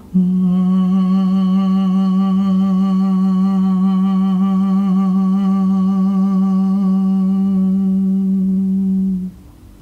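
A woman's voice holds one low sung tone for about nine seconds, steady with a slight waver, then stops: vocal toning to vibrate the crown chakra.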